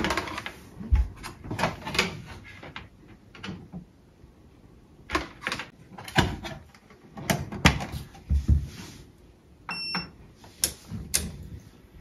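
Irregular clicks, knocks and low thumps of hands working the front panel of a FOSSiBOT F2400 portable power station, with one short high electronic beep about ten seconds in.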